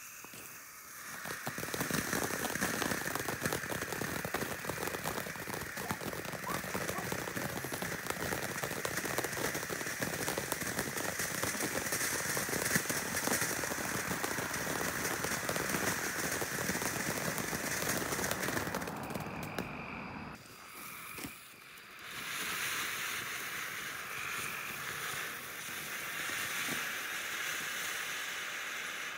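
Consumer fireworks fountain spraying sparks: a continuous hiss thick with fine crackling. About two-thirds of the way through it breaks off briefly, then carries on as a thinner, higher hiss.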